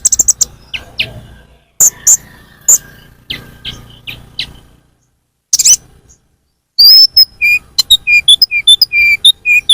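Lure-call recording of the konin (kolibri ninja) sunbird: sharp, high chips and short twittering notes with pauses, then in the second half a quick run of short notes alternating between a lower and a higher pitch.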